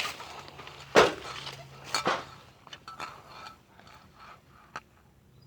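A few sharp knocks and clinks, the loudest about a second in and another about two seconds in, followed by fainter taps that die away.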